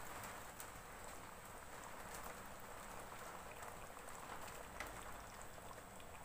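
Fish curry simmering in a kadai: faint bubbling with scattered small pops and crackles.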